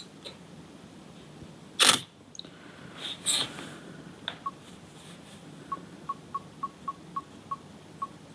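Nikon Z6 mirrorless camera being operated: a loud sharp click about two seconds in and a few softer clicks about a second later, then a run of about nine short, high, evenly pitched beeps in the second half.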